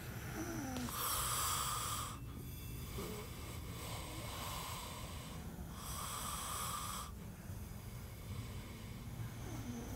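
Noisy breathing close to the microphone, two long breaths about five seconds apart, over a low steady hum.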